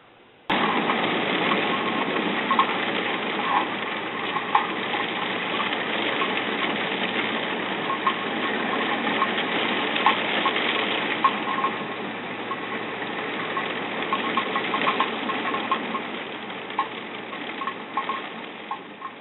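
Heavy rain falling steadily, with many scattered drips and splashes through it. It cuts in suddenly about half a second in and fades out near the end.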